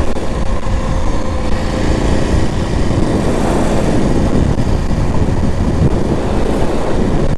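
KTM 890 Adventure R parallel-twin motorcycle engine running steadily while riding, with road noise.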